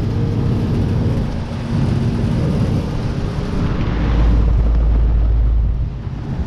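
Commercial packaged air conditioners running, a steady hum of condenser fans and compressors. About four seconds in, a heavy deep rumble comes in for around two seconds.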